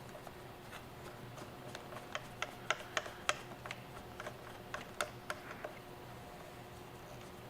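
Light, sharp clicks and taps at an irregular pace, a dozen or so over about five seconds, thinning out near the end: a hand tool working at the jump box battery's negative lead connection to take it off.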